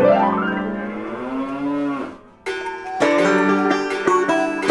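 A drawn-out, moo-like call whose pitch rises and then slowly falls, ending about two seconds in. After a short gap, banjo-led country background music starts.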